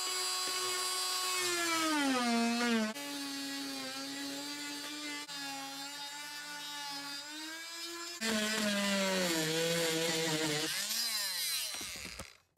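Corded oscillating multi-tool cutting through a plywood floor: a buzzing whine whose pitch sags as the blade bites in, with abrupt jumps in level and pitch about 3 and 8 seconds in. Near the end the pitch falls away as the tool winds down and stops.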